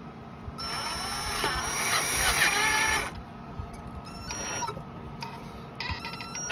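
Black & Decker cordless drill whirring as it drives the impeller retaining screw into the pump motor's shaft: one run of about two and a half seconds, then two short bursts as the screw is snugged down.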